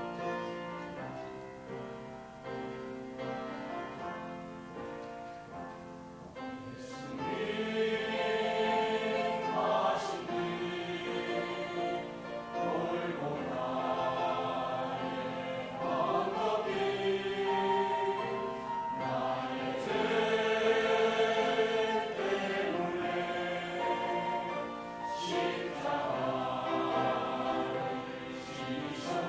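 A choir singing a church praise song with keyboard accompaniment. The choir comes in strongly about seven seconds in, after a quieter instrumental opening.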